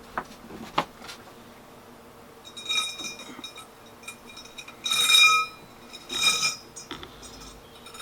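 Metal clinking and scraping from working an old liftgate gas strut's end fitting off its ball-stud mount: two sharp clicks, then three louder scrapes with a metallic ring.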